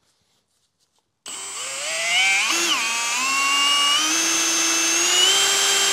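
A small high-speed electric power-tool motor starts about a second in and whines up in pitch. It dips and recovers briefly, then runs with its pitch stepping slightly higher, and stops right at the end.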